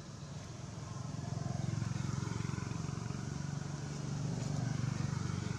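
A motor vehicle engine running steadily, a low hum that grows louder about a second in and then holds.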